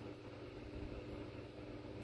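Faint, steady low hum of room background noise.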